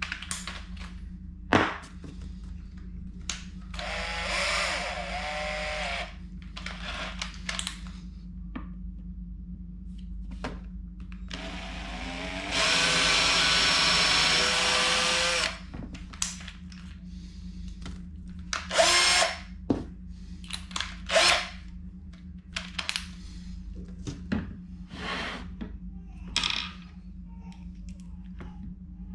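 Cordless drill running in several bursts, the longest and loudest about three seconds near the middle, boring a hole into a shelf board. Brief clicks and knocks sound between the runs.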